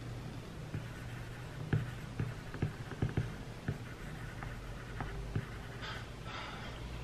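Apple Pencil tip tapping on an iPad's glass screen during handwriting: a quick, irregular run of light taps, thickest in the first half, then a couple of soft scratchy strokes near the end, over a steady low hum.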